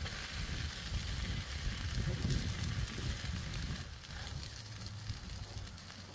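Butter, oil and cheese sizzling on a hot Blackstone flat-top griddle while a folded tortilla is pressed down with a metal spatula, over a louder, uneven low rumble.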